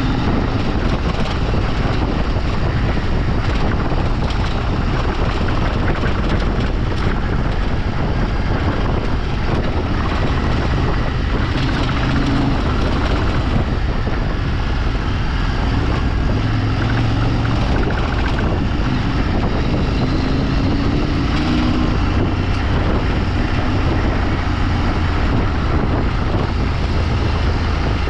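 Off-road vehicle engine running under way, its pitch wandering up and down a little as it goes, under a steady rush of wind noise on the microphone.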